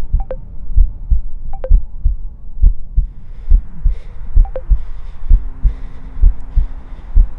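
Suspense film soundtrack: a steady, deep heartbeat-like pulse beating about two to three times a second, with sparse short high notes over it. A low held tone comes in about five seconds in.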